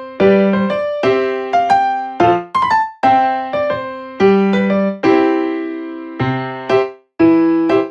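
Background music: a gentle piano or electric piano tune of struck chords and short melodic phrases, each note fading after it is played.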